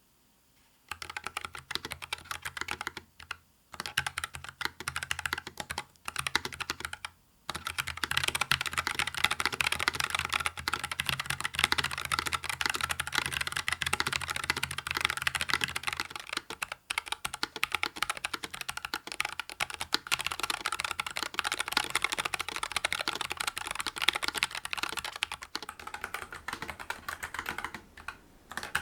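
NuPhy Air60 low-profile wireless mechanical keyboard being typed on, captured through a Shure MV7 microphone. It starts with a few short bursts of keystrokes with brief pauses, then about 7 seconds in turns to steady, fast typing.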